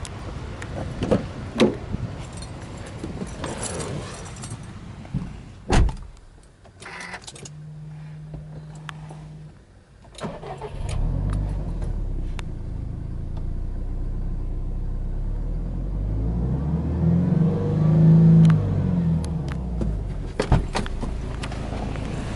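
Subaru Impreza WRX STI's turbocharged flat-four boxer engine being started from cold about ten seconds in, catching and settling into a steady idle, with one throttle blip that rises and falls in pitch near the end. Before the start come door and handling clicks, a sharp door thump, and a short steady hum.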